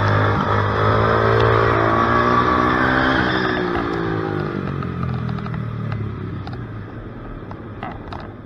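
Onboard sound of a small racing engine, revving up and down at speed, then dropping in pitch and fading as the vehicle slows off the lap, with a few light clicks near the end.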